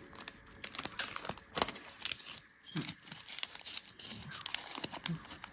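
Clear plastic sticker bag crinkling and paper die-cut stickers rustling as a stack of stickers is handled and slid back into the bag: irregular crisp crackles and clicks.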